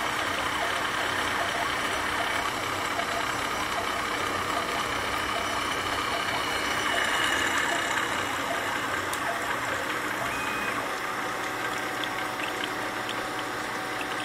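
CNC mill-drill spindle running, with a small end mill cutting a metal plate under a stream of cutting fluid: a steady machining noise.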